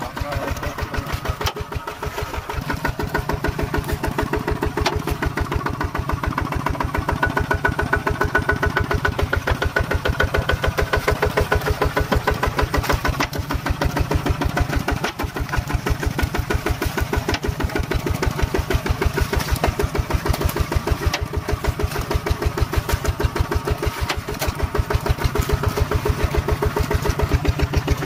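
Single-cylinder diesel engine of a two-wheel walking tractor running steadily, its firing pulses in an even beat. It gets a little louder a few seconds in.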